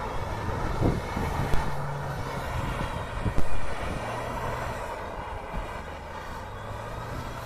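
Renault Duster SUV's engine working hard, its pitch shifting in steps, while the tyres spin and slide on loose sandy dirt with a steady hiss of sprayed grit and a few knocks.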